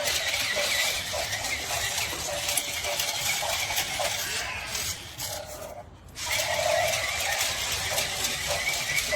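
A battery-powered remote-control T-rex toy running, making a steady, noisy electronic and mechanical sound. The sound breaks off briefly about six seconds in, then starts again.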